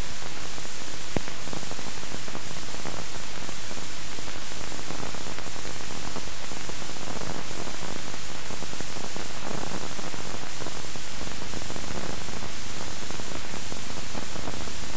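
Steady hiss of an old film soundtrack, with a few faint crackles and clicks.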